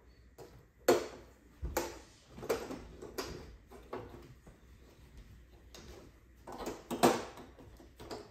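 Plastic diffuser frame of an LCD TV's LED backlight being fitted back over the diffuser sheets: a series of sharp plastic clicks and knocks as it is pressed into place, the loudest about a second in and near the end.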